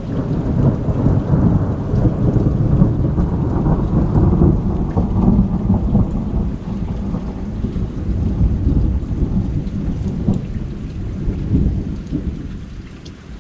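A long roll of thunder that builds within the first second and rumbles for about twelve seconds before fading away, over steady rain.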